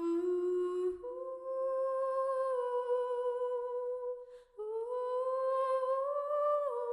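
A slow solo melody of long held notes that step gently up and down, broken by a short pause about four seconds in.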